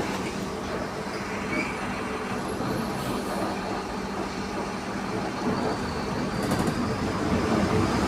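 Mercedes-Benz LO 916 minibus under way, its 4.8-litre four-cylinder OM 924 LA turbodiesel running with a steady low drone and the differential growling. The sound builds slightly near the end.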